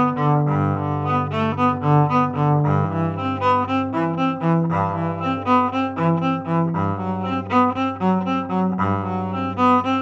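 Yamaha SVC-210 silent electric cello played with the bow, heard dry through its direct-in output with no onboard effect. A held low note sounds beneath a quick line of notes above it.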